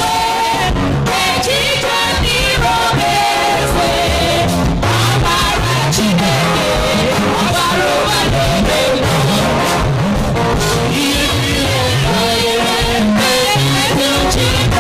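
Recorded gospel song playing: a singer's melody over a moving bass line and drums.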